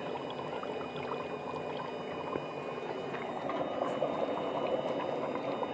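Beef curry simmering in its pot, the gravy bubbling with a steady dense crackle.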